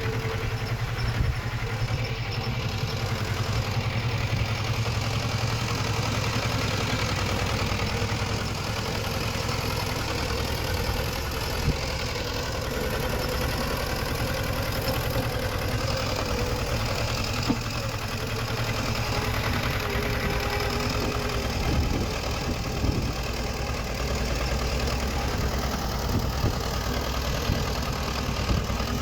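Diesel engine of earthmoving machinery running steadily, with a few sharp knocks scattered through.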